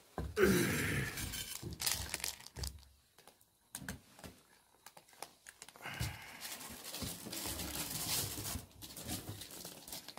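Plastic bag of dry cat food crinkling and rustling in two bursts, with a quieter stretch of small clicks between them.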